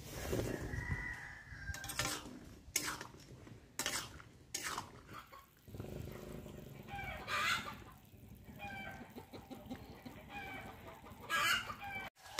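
Chickens clucking and calling in short, repeated notes, with a longer, louder call about seven seconds in. A few sharp clicks come in the first half.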